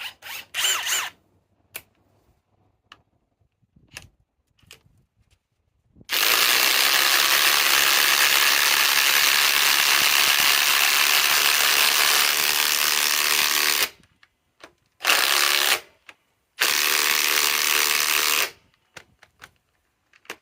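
Cordless 1/2-inch impact wrenches set to speed 3 hammering fasteners in: a few short bursts at the start, then one long continuous run of about eight seconds from about six seconds in, followed by two shorter runs of one to two seconds.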